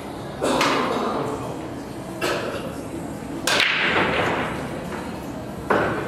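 Sharp clacks of pool balls and cue strikes from surrounding tables, echoing in a large hall: four of them, at about half a second, two seconds, three and a half seconds (the loudest) and near the end.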